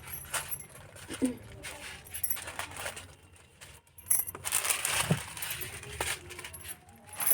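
Jewellery being handled: light metallic clinks and clicks of one-gram gold necklace pieces, with a longer rustle of packaging around the middle.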